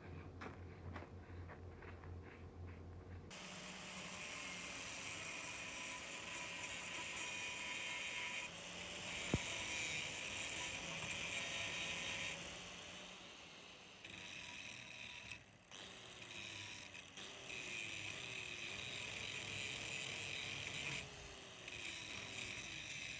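A power tool cutting through the metal handle pins of a cleaver: a steady grinding noise with a whine, starting about three seconds in and broken off abruptly several times. Before it comes a low hum with light clicks.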